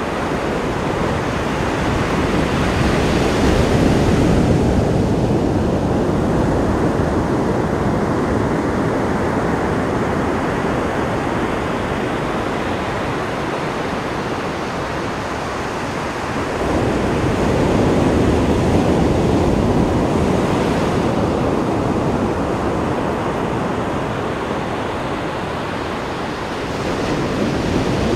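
Ocean surf washing onto the beach as a continuous rushing, swelling louder a few seconds in, again a little past halfway, and near the end, with wind rumbling on the microphone.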